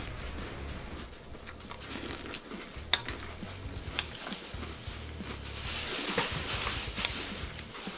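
A metal spoon scooping cereal and milk in a stainless steel bowl, with sharp clinks against the bowl, the loudest just before three seconds in, and the crunching and chewing of Cap'n Crunch cereal.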